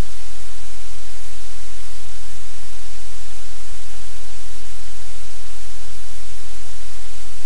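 Loud, steady static hiss with a low hum beneath it, unchanging throughout; no puppy, dog or handling sound stands out from it.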